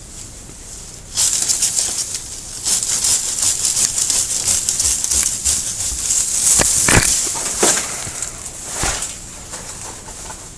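Japanese maple foliage in autumn colour rustling loudly as branches are grabbed and pulled, starting suddenly about a second in, with a few sharp snips of pruning shears in the second half.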